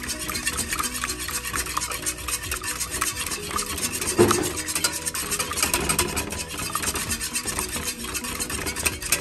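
Wire whisk beating a thin milk-and-egg batter in a glass baking dish: fast, continuous clinking and scraping of the wires against the glass, with one louder knock about four seconds in.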